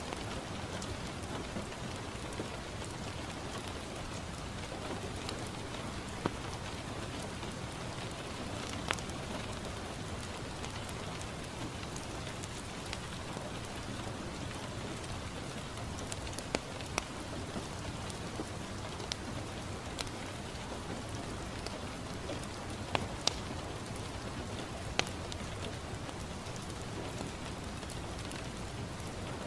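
Steady rain falling on a window, with a handful of sharp, isolated pops from a crackling wood fire scattered through it.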